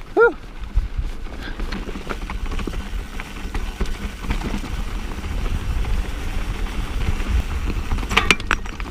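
A rider's brief whoop, then a mountain bike rolling fast down rocky dirt singletrack: wind rumbling on the mic, tyres crunching over dirt and rocks, and the bike rattling, with a cluster of sharp clacks near the end.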